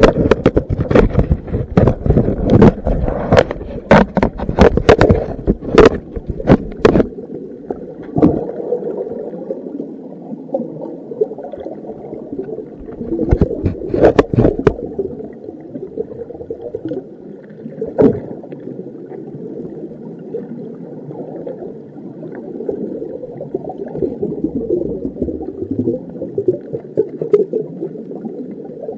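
Heard under water: a metal bar knocking and scraping against the rock in a crevice, a quick run of sharp clicks and knocks for the first several seconds, then a steady muffled underwater rush with a few more knocks, the loudest clusters about halfway through.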